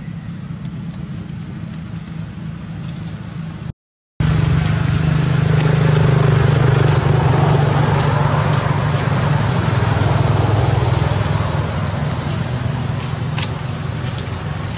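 A steady low motor hum. It cuts out for a moment about four seconds in and comes back louder, with a few faint clicks over it.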